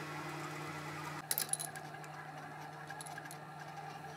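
Manual metal lathe running steadily as it turns a small metal firing pin. About a second in the sound changes abruptly, and a few sharp metal clinks follow from the chuck key being worked at the stopped chuck, over a quieter steady hum.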